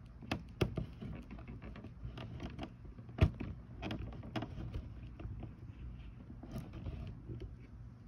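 Irregular taps and knocks, a few close together, with one louder knock about three seconds in, over a steady low hum.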